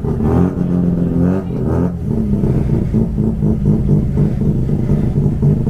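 A classic car's engine being revved with quick throttle blips, the pitch rising and falling, then settling about two seconds in to a steady, pulsing run.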